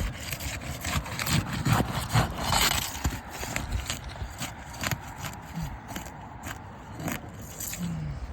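Asphalt roof shingles being worked loose and lifted off the wooden roof decking: scraping and rubbing with many sharp clicks and knocks, and a few brief squeaks.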